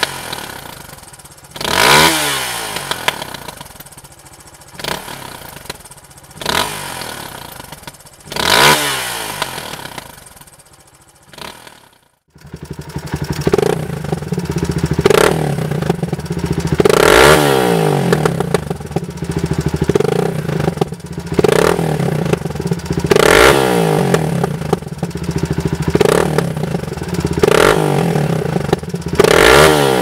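Suzuki DR 350 single-cylinder four-stroke engine being revved on the stand, with sharp throttle blips every couple of seconds, each rev falling away. At first it runs through the stock exhaust, with the sound dying down between blips. About twelve seconds in it switches to a Dominator MX aftermarket silencer, which gives a louder, steady low rumble at idle under the same repeated blips.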